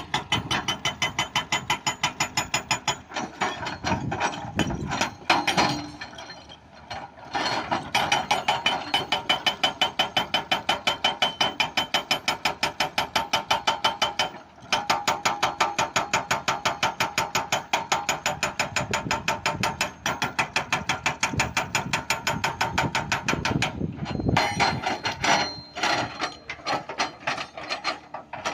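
Excavator-mounted hydraulic breaker hammering a big stone: rapid, evenly spaced blows, about four or five a second, in long runs with short pauses between them.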